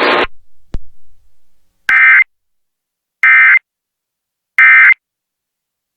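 Emergency Alert System end-of-message signal: three short, identical digital data bursts (the SAME 'NNNN' code) just over a second apart, marking the end of the flash flood warning broadcast.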